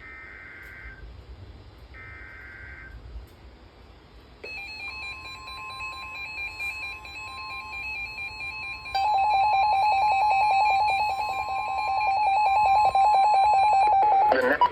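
NOAA Weather Radio emergency alert signalling. The last two buzzy data bursts of the coded SAME alert header come first. From about four seconds in, the steady 1050 Hz warning alarm tone sounds, with other alarm tones layered over it and a fast pulsing beep joining about halfway through. It cuts off just before the end, signalling that a Special Marine Warning is about to be read.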